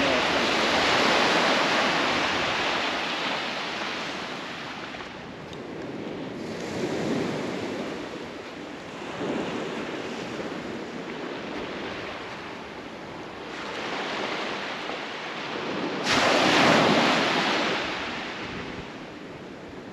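Ocean surf breaking and washing up a beach, the rushing swelling and ebbing in waves; a big wave breaks loudly about sixteen seconds in.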